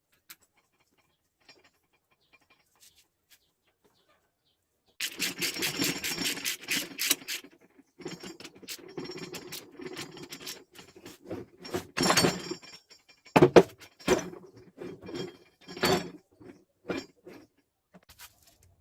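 Metal parts clicking and clattering as they are handled: a dense run of rattling starts about five seconds in, then scattered clinks and knocks follow.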